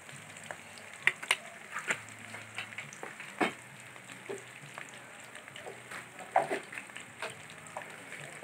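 Fried catfish and leeks sizzling in oil in a wok, a steady hiss with scattered crackles and a few sharper clicks.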